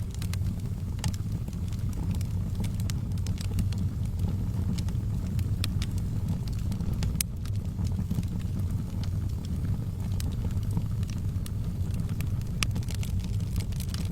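Wood fire in a fireplace crackling, with irregular sharp pops and snaps scattered over a steady low rumble.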